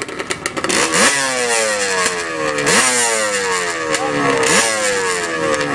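Sport quad (ATV) engine revved in repeated quick throttle blips at the start line of a drag race. Each time the revs snap up and then sag back slowly before the next blip.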